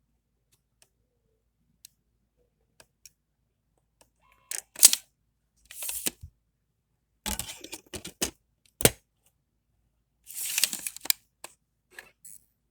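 Laptop optical disc drive being handled with a CD: a few faint clicks, then a series of short plastic clatters and sharp clicks as the tray and disc are worked. The sharpest clicks come about five and nine seconds in.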